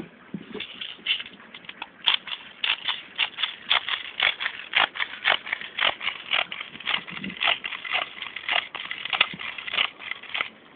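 Rapid plastic clicks, about two to three a second, as BBs are pushed into an airsoft MP40 magazine from a speed loader.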